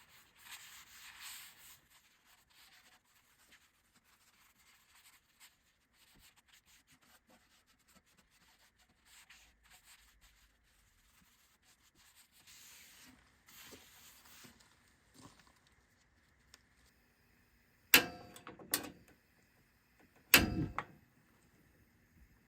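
Paper towel rubbing oil across a steel griddle top, faint and intermittent. Near the end, two sharp knocks that ring like struck metal.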